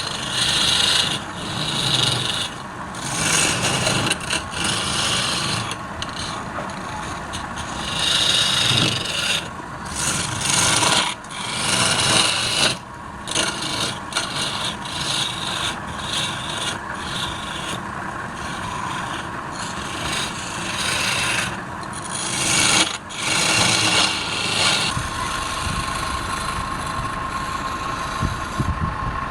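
A tool scraping and cutting wood spinning on a lathe, in repeated rasping passes a second or two long. The cutting stops near the end, leaving the lathe's steady motor hum.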